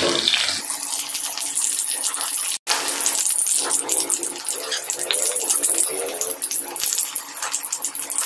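Okra sizzling and crackling in hot mustard oil in an iron kadai as it is scooped out with a slotted metal spoon. It is a steady hiss with many small crackles, and the sound drops out for an instant about two and a half seconds in.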